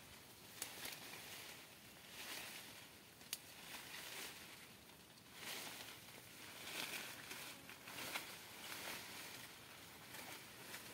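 Faint rustling of leaves and brush that comes in uneven swells, with a few sharp clicks, the clearest near the start and the end.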